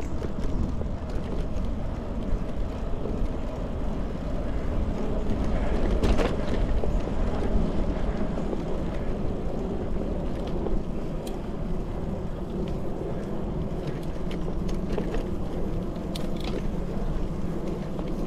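Bicycle rolling along an asphalt trail: a steady rush of tyre and wind noise, with a brief knock about six seconds in.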